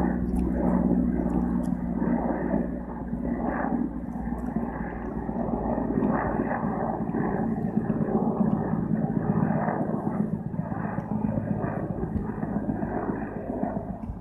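Helicopter flying low overhead, with a steady engine and rotor drone.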